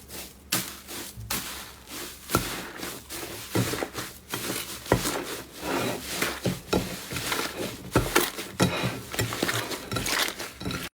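Slime being squeezed and pressed by hand, giving dense, irregular crackling and popping clicks, some sharper and louder than the rest.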